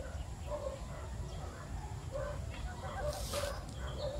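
Chickens clucking in short, repeated calls about twice a second, over a low steady rumble, with a brief hiss about three seconds in.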